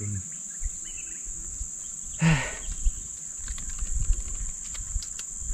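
Steady high-pitched drone of forest insects. About two seconds in comes a brief voiced exclamation, with low rumbling and a few faint clicks of handling.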